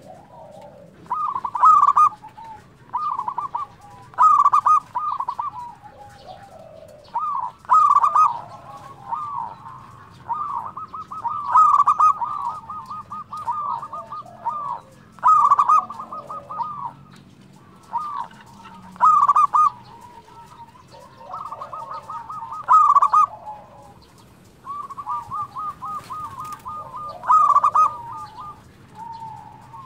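Local zebra dove (perkutut) cooing: phrases of rapid rolling, rippling notes, repeated every few seconds.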